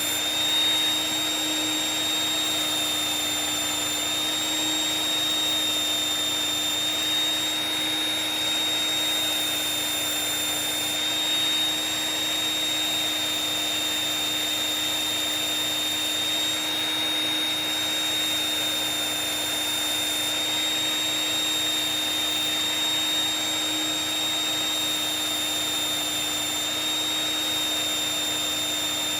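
Electric knife sharpener's motor running steadily with a high whine while a knife blade is worked on its strop-like honing stage.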